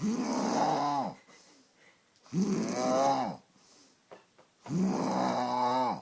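Snoring: three long, pitched snores about two and a half seconds apart, each rising and then falling in pitch, with quiet breaths between them.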